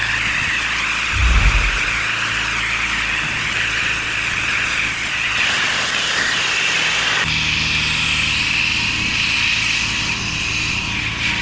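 A pressure washer's high-pressure water jet blasting a stone patio, a steady loud hiss over a low steady engine hum, with a brief low thump about a second in.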